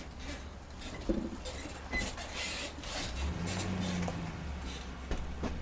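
Low steady drone of a vehicle on the move, with scattered clicks and light rattles over it.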